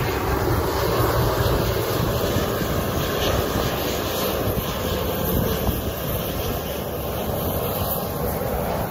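Steady aircraft engine noise with no clear tone, with wind rumbling on the microphone.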